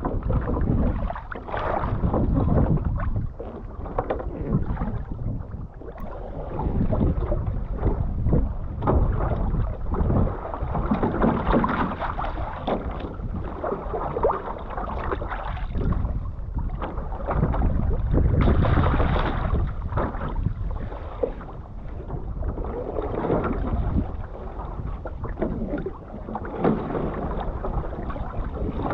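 Wind buffeting the microphone, rising and falling in gusts, over sea water lapping and splashing against the hull of a one-person outrigger canoe drifting on choppy sea.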